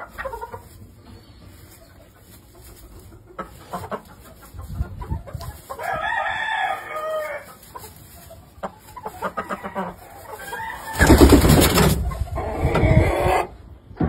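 Gamecock crowing twice, about six seconds in and again near the end. Just before the second crow there is a loud, brief burst of rustling noise, the loudest sound here.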